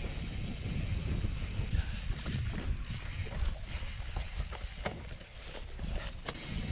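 Wind rumbling on the microphone as a gravel bike rolls over rough, muddy and slushy ground, with scattered sharp clicks and knocks from the bike.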